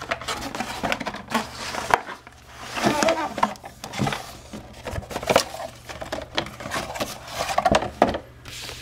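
Cardboard sunglasses box being opened by hand: flaps pulled open and folded paper inserts slid out, with irregular rustling, scraping and light knocks against a wooden surface.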